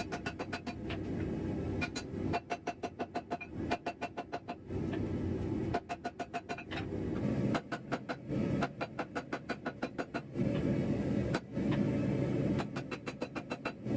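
Rapid hammer blows on steel at the anvil, about five a second in runs of one to two seconds, each with a short metallic ring. Between the runs comes a steady low rushing noise.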